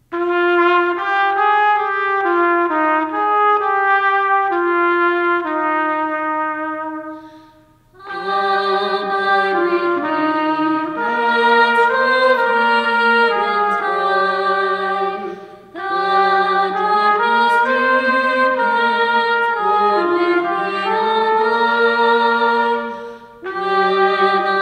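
Trumpet playing a melody alone. About eight seconds in, a flute and other parts join, and they play on together in phrases with short breaks between them.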